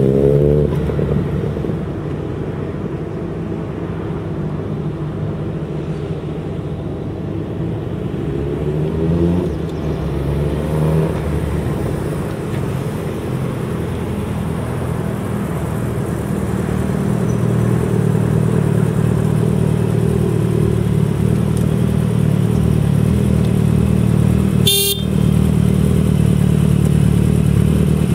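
Kawasaki ZX-14R's inline-four through a Brock's aftermarket exhaust, revving and shifting up as it pulls away at the start, its note dropping and climbing again a few seconds later, then running steadily at low revs as the bike rides back and stops. A brief sharp sound comes near the end.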